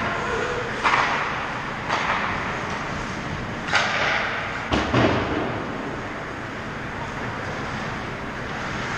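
Ice hockey play close to the goal: about five sudden scrapes and clacks of skate blades and sticks on the ice in the first five seconds, each with a short echo, over the steady noise of an indoor rink.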